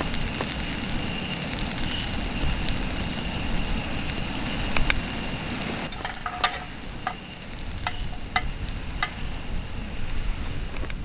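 Asparagus sizzling in a frying pan, an even hiss. About six seconds in the sizzle drops away and several sharp metal clicks follow as tongs tap the pan.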